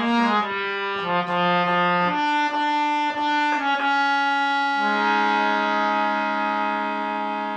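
Harmonium playing a slow melody of sustained reedy notes, then settling on a long held note from about five seconds in that slowly fades near the end.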